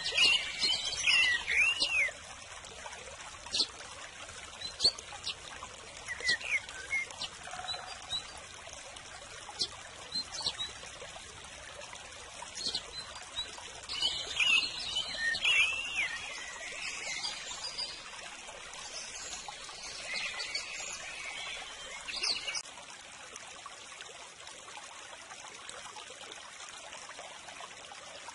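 Birds chirping in several short bouts over a steady trickling of running water. The chirping stops a few seconds before the end.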